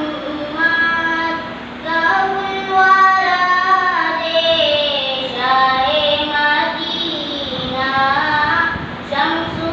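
A young boy singing a naat, a devotional poem in praise of the Prophet, solo in long melodic phrases with held notes that bend and waver in pitch, with short breaths between phrases.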